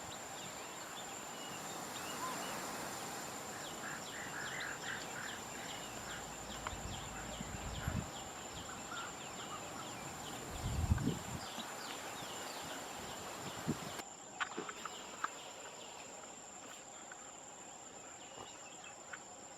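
Outdoor rural ambience dominated by insects: a steady high-pitched drone with rapid repeated chirping, and a few short bird-like calls. Two low thumps come near the middle, the louder one about eleven seconds in. The background shifts abruptly about fourteen seconds in.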